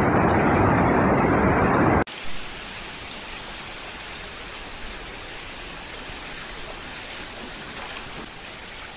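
Muddy floodwater pouring down a lane in a loud, steady rush that cuts off abruptly about two seconds in. A much quieter, even rush of flowing water follows.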